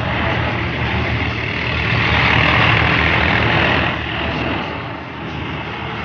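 Several New Holland 3630 tractors' diesel engines running together as the tractors circle. The sound grows louder about two seconds in and eases off after about four seconds.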